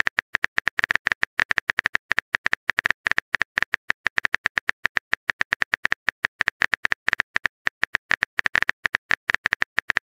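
Phone on-screen keyboard typing sound effect: a fast, even run of short key clicks as a text message is typed out.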